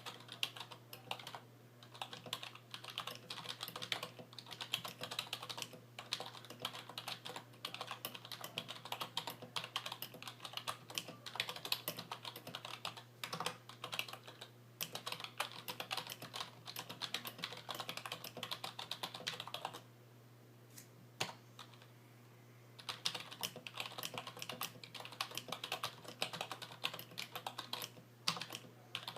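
Typing on a 1996 IBM KB8923 rubber-dome membrane keyboard with PBT keycaps and lubed keys and stabilizers: a fast, steady patter of soft key presses. The typing stops for about three seconds roughly two-thirds of the way in, then carries on.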